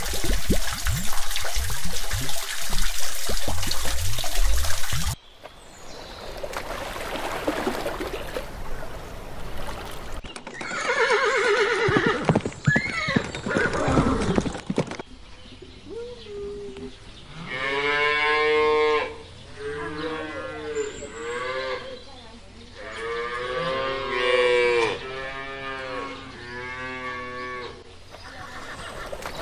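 Water gushing from a small pump's hose into a shallow pond for the first five seconds or so. Then a horse whinnies, and in the second half cows moo repeatedly, several long moos one after another.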